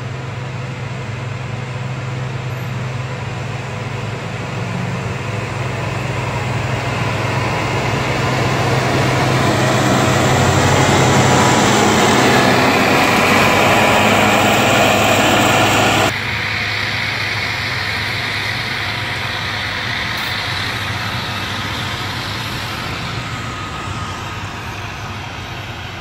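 Caterpillar motor grader's diesel engine running as the grader works past close by, growing steadily louder. About two-thirds of the way through it gives way suddenly to a quieter heavy truck's diesel engine that slowly fades.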